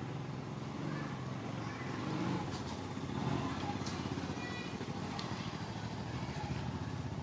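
Steady low engine drone of a motor vehicle running, with a few faint short high chirps above it.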